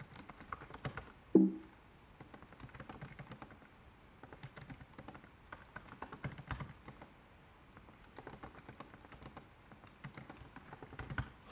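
Typing on a computer keyboard: irregular key clicks as a command is entered, with a short lull around eight seconds in. A brief low vocal sound about a second and a half in is the loudest thing.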